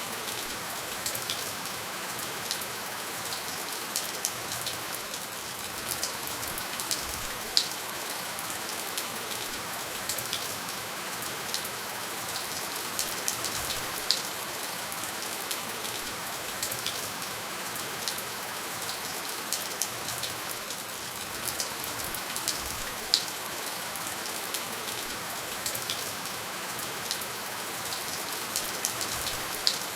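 Steady rainfall with no thunder: an even hiss of rain, with distinct drops ticking close by every second or so.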